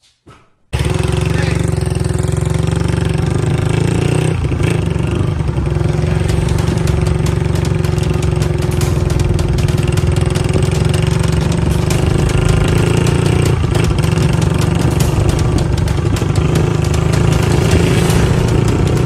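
Loud, steady rush of wind buffeting the microphone while rolling downhill with the motorcycle engine switched off, starting suddenly just under a second in.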